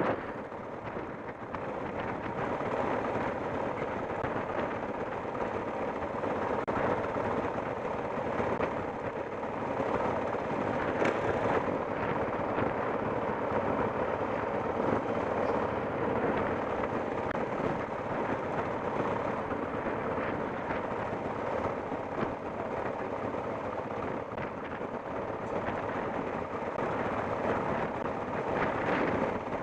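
Off-road motorcycle engine running steadily while being ridden.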